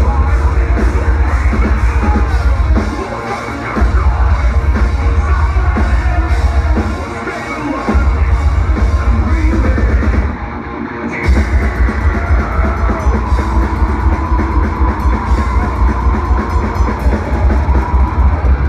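Melodic death metal band playing live at full volume: rapid double-kick drums and distorted guitars with yelled vocals. The kick drums drop out briefly three times, about 3, 7 and 10 seconds in, then pound on.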